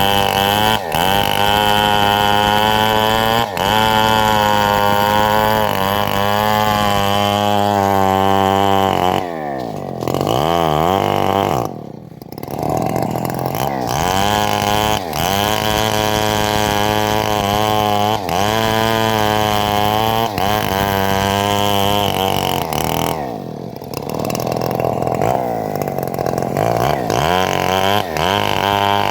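Engine of a homemade bandsaw mill running at high revs while sawing teak, its pitch wavering under the load of the cut. Twice, about ten and twenty-three seconds in, the revs drop away and climb back up.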